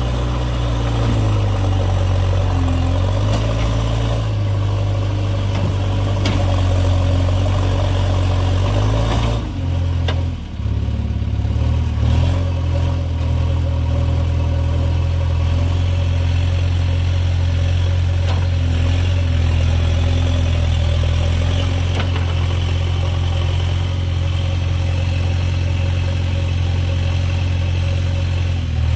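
Heavy diesel engine running loud with a low, steady note. Its pitch shifts up and down over the first several seconds, drops briefly about ten seconds in, then holds even.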